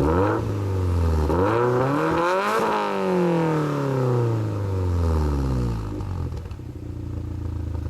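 Subaru WRX STI's turbocharged flat-four boxer engine with an aftermarket exhaust being revved: a quick blip just after the start, then a longer rev that climbs and falls away, settling back to a steady idle about six seconds in.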